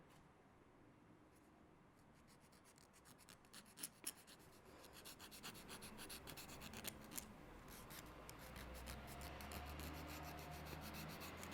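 Nail file rasping across a fingernail in short quick strokes, sparse and faint at first, then coming faster and steadier from about halfway.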